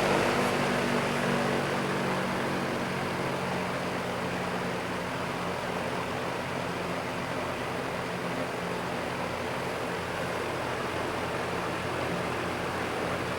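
WeatherWorks DB888 three-blade box fan running on its low setting: a steady rush of air over a low motor hum. It eases down over the first few seconds as the motor slows from medium, then holds steady.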